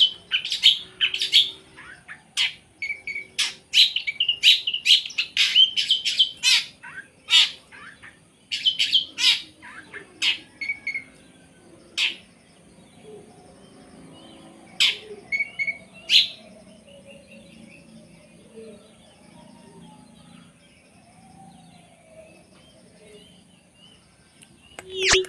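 Long-tailed shrike (cendet) singing in fast bursts of sharp, high chattering calls. The calls come thick for about the first twelve seconds, then thin out to a few scattered ones.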